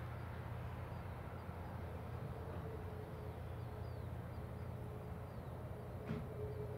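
Low, steady rumble of a Boeing 737 MAX 8's CFM LEAP-1B jet engines, with a faint steady hum, as the airliner rolls along the runway after landing. Faint quick bird chirps come over it in the first half, and there is a single short click near the end.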